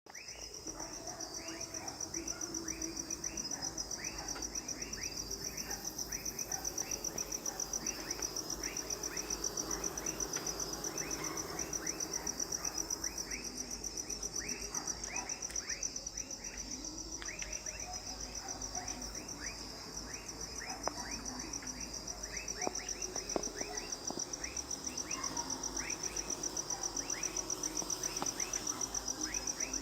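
Night insects, crickets among them, trilling: a steady, high, fast-pulsing trill throughout, with a constant stream of short falling chirps beneath it.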